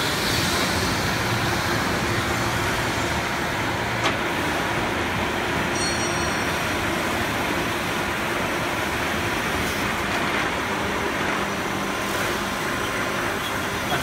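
Automatic HVAC duct roll-forming line running, galvanised steel sheet feeding through its roller stations with steady machine noise and a sharp click about four seconds in.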